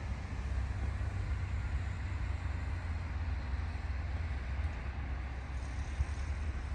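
Wind buffeting the microphone: a steady, unpitched low rumble that flickers constantly, with a broad hiss above it.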